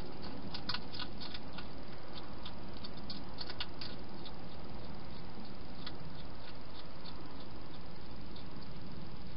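Wild hedgehog feeding at a bowl: irregular sharp clicks and crunches, coming quickly in the first few seconds and more sparsely after, over a steady hiss.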